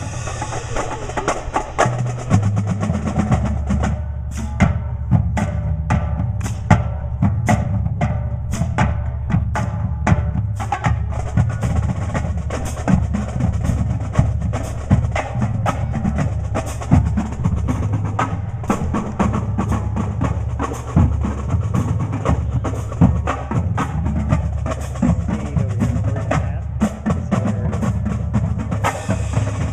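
Drums and percussion played to a steady beat over a low bass line, with sharp woodblock-like hits.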